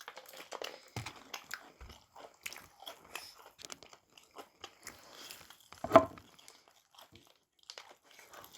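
People biting and chewing crunchy fried chicken, with irregular crackly crunches and one louder knock about six seconds in.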